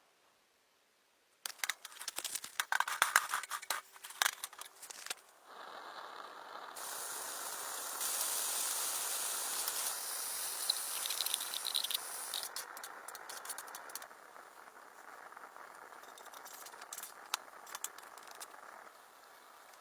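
Clicking and rattling of handled objects for a few seconds, then a steady hiss that runs for about fourteen seconds, loudest in the middle, before dying away near the end.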